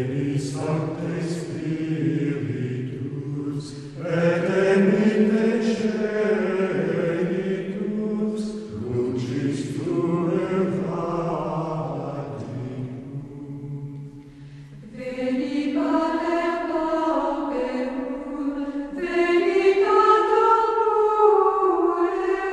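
Choir singing a slow chant in long held notes, several voices together, phrase after phrase with short breaks between them.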